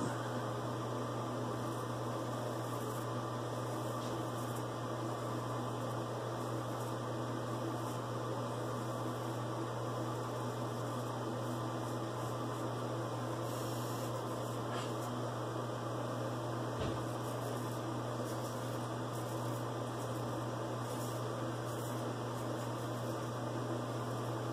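Vintage George & Sons Sheffield straight razor scraping through lather and stubble in faint, brief strokes, over a steady low hum.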